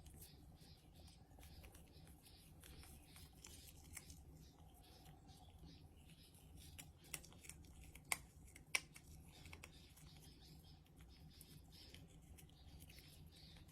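Faint rhythmic scrubbing, about three strokes a second, of a toothbrush on a cat's teeth, with a few sharp clicks about eight seconds in.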